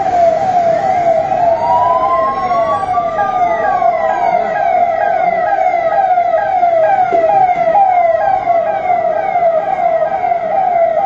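Police vehicle siren sounding a fast, repeating falling wail, about two to three sweeps a second. A second, slower tone rises and falls over the first few seconds.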